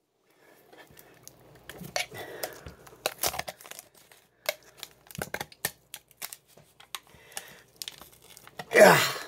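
Hands pulling apart a sawn-open tin can: the paper label tearing and crinkling, with scattered clicks and scrapes of the cut metal. A louder sound falling in pitch comes near the end.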